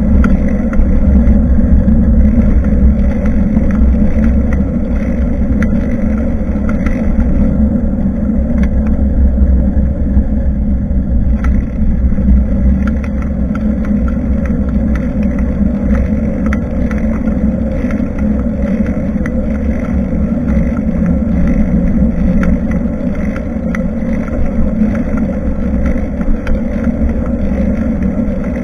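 Steady rumble of wind and road noise picked up by a camera mounted on a moving bicycle, with frequent small clicks and rattles throughout.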